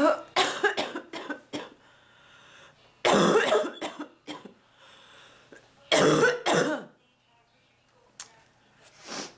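A woman coughing in four short bouts, each a few harsh coughs in quick succession. It is an annoying, ticklish cough that will not bring the phlegm up.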